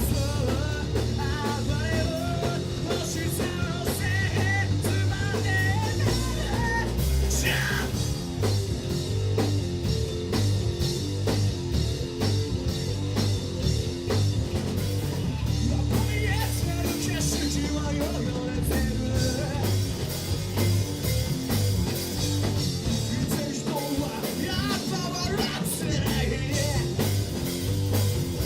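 Amateur rock band playing live: a singer over electric guitar and drum kit, with a heavy bass end.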